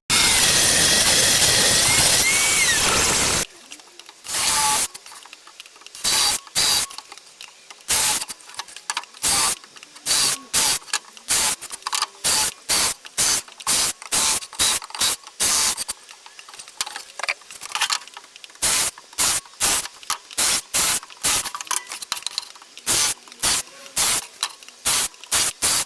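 Paint being sprayed: one continuous hiss for about three and a half seconds, then a long run of short hissing bursts, about two a second.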